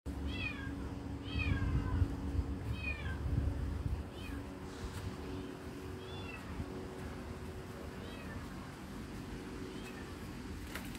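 High, arching calls from a small animal, three clear ones in the first three seconds and then fainter ones every second or two, over a steady electrical hum. A low rumble runs under the first four seconds.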